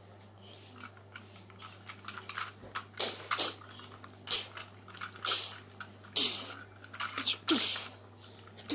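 Irregular short, breathy hissing bursts, about one a second after the first couple of seconds, a few with a falling voice in them: mouth-made fight noises as a plush toy is bashed against toy robots, with light knocks and rustling of the toys.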